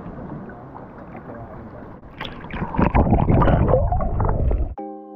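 Seawater sloshing around a snorkeller at the surface, then louder splashing and bubbling as he ducks under with the camera. Mallet-instrument music comes in near the end.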